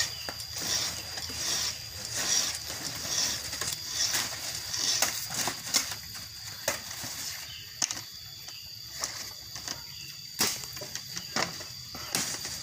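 A round file rasping across a chainsaw chain's cutter teeth in short strokes, about one a second, sharpening the chain. In the second half the strokes thin out into a few sharp clicks and knocks.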